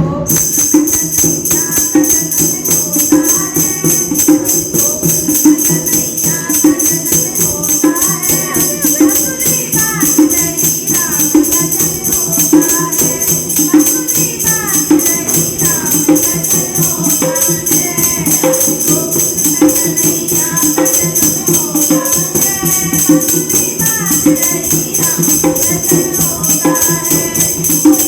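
Women singing a Krishna bhajan over a fast, steady beat of jingling hand percussion.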